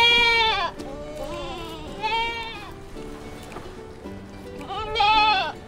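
Sheep bleating: four wavering bleats, loud ones at the start and near the end, quieter ones in between, over background music with sustained notes.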